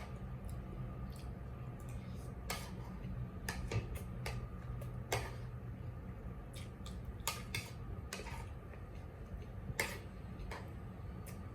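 Spoon and fork clicking and tapping against a plate in irregular, scattered strikes while eating tapsilog, over a steady low hum.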